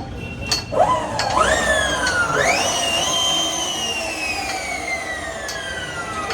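A high electric motor whine that climbs in three quick steps, then falls slowly and smoothly as it coasts down, like the Ather 450X's motor spinning its rear wheel up and letting it run down.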